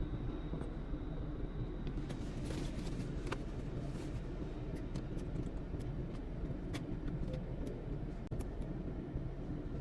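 Car engine idling steadily as a low rumble, with scattered light clicks and rattles from about two seconds in.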